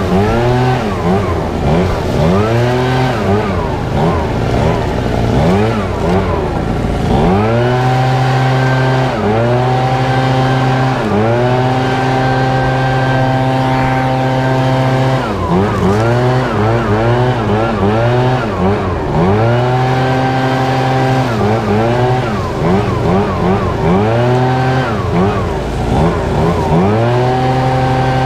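ECHO PB-8010 two-stroke backpack leaf blower running, its pitch swooping up and down again and again as the throttle is worked, with stretches held steady at high speed in between.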